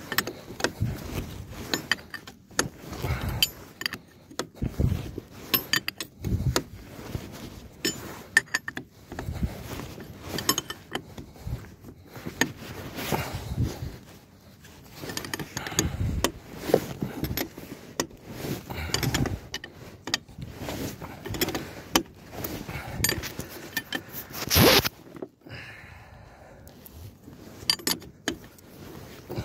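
Irregular metallic clicks, clinks and knocks of hand tools and metal parts being worked on a trailer's brake assembly, with one louder, longer burst a little before the end.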